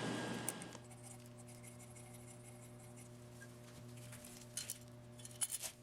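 Faint steady hum, with a few light clicks near the end.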